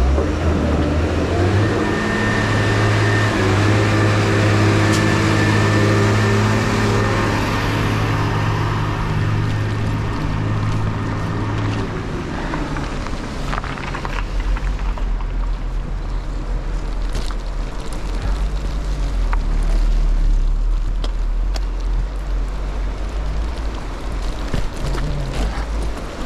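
A motor vehicle's engine running at a steady pitch close by, stopping about twelve seconds in. After that, wind rumbles on the microphone with a few clicks.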